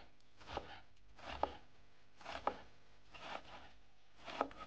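A kitchen knife slicing an onion on a wooden cutting board, five cuts about a second apart, each a short crunch ending in a sharp tap of the blade on the board.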